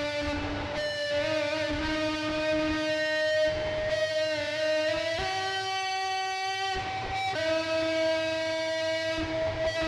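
Music: a slow lead melody of long held notes, joined by short pitch slides as it moves from note to note.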